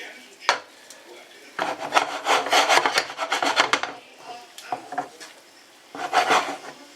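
Spatula scraping and stirring king prawns around a hot frying pan. There is a knock about half a second in, a run of rapid scrapes lasting about two seconds, then a shorter run near the end.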